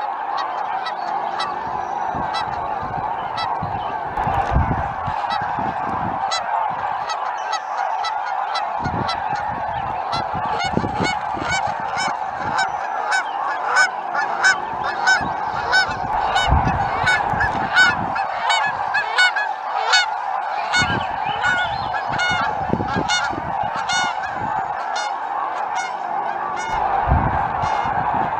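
A large flock of geese honking, with many calls overlapping continuously and the calling at its thickest about halfway through.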